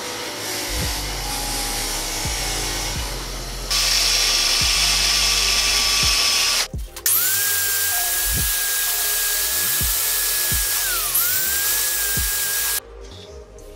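Power tool spinning a Scotch-Brite abrasive wheel against an aluminum engine case, with a steady hiss. It stops briefly and restarts with a steady high motor whine that sags in pitch once, as if loaded, then recovers before the tool stops near the end. Background music with a steady beat plays underneath.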